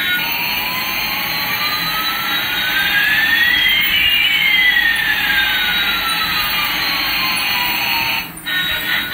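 Electronic jet-engine sound effect from a light-up toy Airbus A380: a steady hiss with one tone rising and another falling, crossing each other over about six seconds. It drops out briefly near the end.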